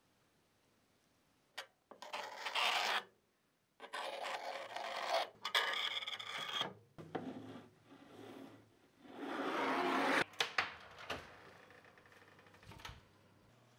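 Metal spatula scraping and smoothing batter across a Wagner cast iron cornstick pan, in several rasping strokes of one to three seconds each, followed by a few sharp clicks.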